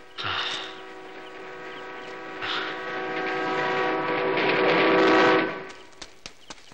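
Diesel locomotive horn sounding one long, steady blast that grows louder as the train approaches, then cuts off suddenly near the end.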